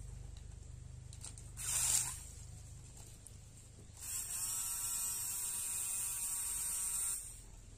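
Small DC motor spinning a homemade propeller in a tub of water. There is a short burst of churning water about two seconds in. About four seconds in, the motor's buzzing whine rises to speed, runs steady for about three seconds, and cuts off.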